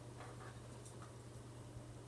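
A few faint, light clicks of small parts being handled, over a steady low electrical hum.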